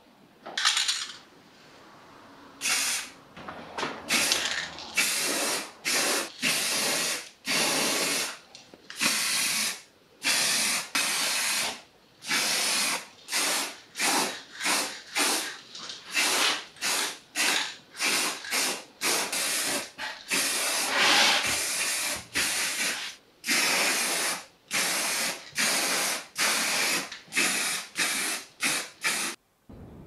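Aerosol spray paint can hissing in a long series of short bursts, each from a fraction of a second to about a second and a half long, with brief pauses between.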